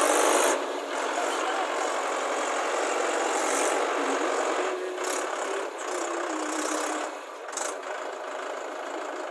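Tractor engine running steadily, loudest in the first half second.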